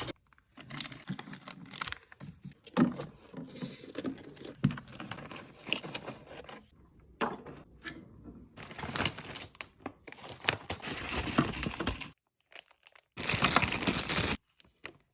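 Plastic snack packaging crinkling and rustling in bursts with short pauses, with a few light clicks and knocks as packs are handled and set in place.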